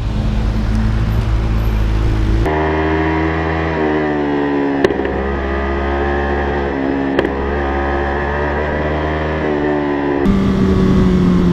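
Motorcycle engines from helmet-camera rides. A low steady idle cuts, about two and a half seconds in, to a steady engine note that rises and dips gently as the bike rides along, with two sharp clicks. Near the end it cuts to a different engine note.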